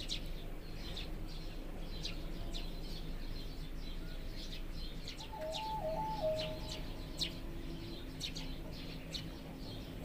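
Thrushes calling: many short, high chirps scattered throughout, over a steady low background hum. A brief stepped whistling tone sounds faintly about five seconds in.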